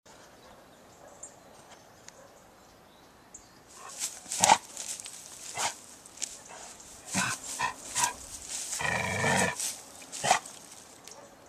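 Another dog barking out of sight. Starting about four seconds in, it is mixed with sharp clicks and rustles close by.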